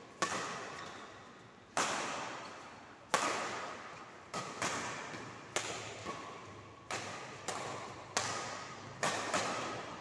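Badminton rally: rackets striking the shuttlecock about ten times, roughly once a second, each sharp smack ringing on in the hall's echo.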